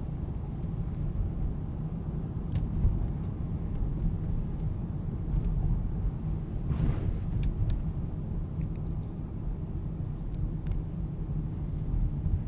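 A car drives along with a steady low rumble of engine and tyre noise. There are a few light clicks, and a brief hiss about halfway through.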